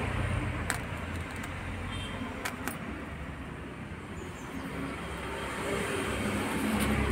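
Steady low rumble and hiss of background noise, with a few faint clicks.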